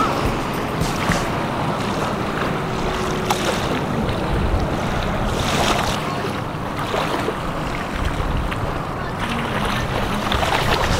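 Wind blowing over the microphone with small waves lapping in shallow bay water, a steady rushing noise with a low rumble.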